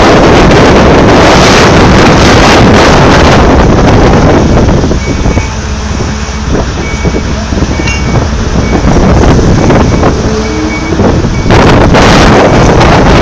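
Heavy wind buffeting on the microphone over the low rumble of a Komatsu PC8000 mining excavator. The wind eases for several seconds in the middle, and a faint, irregular beeping comes through.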